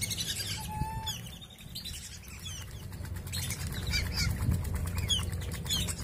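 Whistling ducks in a shallow pond: wings flapping, with short, high, falling whistled calls coming again and again.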